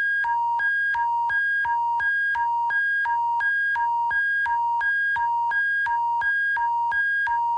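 Emergency alert attention signal: two electronic tones alternating high and low, about one and a half high-low pairs a second, over a steady low hum.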